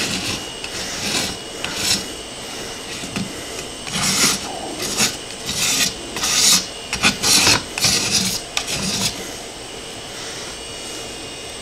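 Razor blade scraping glue residue off a metal 3D-printer bed plate in a run of uneven, short scraping strokes, which stop about nine seconds in.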